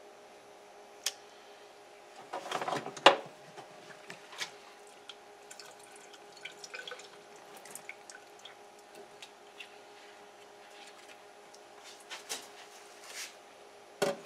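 Wet handling sounds of a raw flounder on a wooden cutting board: scattered clicks, taps and drips, with a rustle that ends in a sharp knock about three seconds in, over a faint steady hum.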